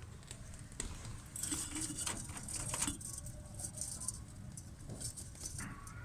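A flock of budgerigars in an aviary: faint, scratchy high-pitched chattering and clicks in short bunches, heaviest in the first half.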